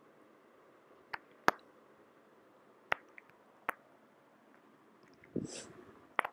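A knife cutting thin rounds off a small brinjal held in the hand, with a few short, sharp clicks as the blade goes through. About five seconds in comes a soft splash as a slice drops into a bowl of water.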